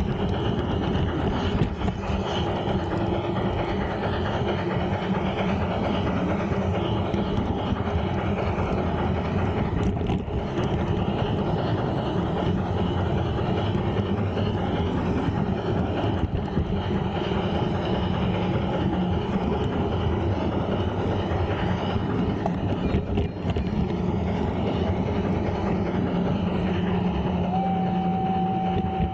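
G-gauge model train rolling along garden track, heard from a camera riding on the train: a steady rumble of metal wheels on rails with motor hum. Near the end a single steady tone sounds for about two seconds.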